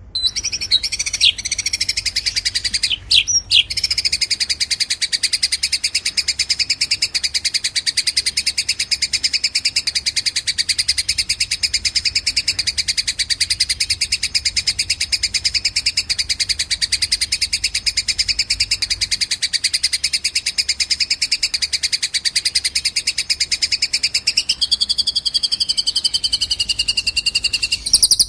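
Recorded cage-bird tutor song mixing a fighting Eurasian tree sparrow (gereja tarung) with a long cililin song: a rapid, unbroken trill of high notes. A few sharp calls break in about three seconds in, and a lower sliding phrase joins near the end.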